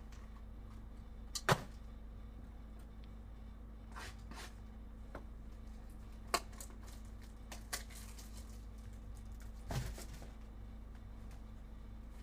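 Scattered light clicks and taps from trading-card packs and cards being handled, with the sharpest tap about a second and a half in, over a faint steady electrical hum.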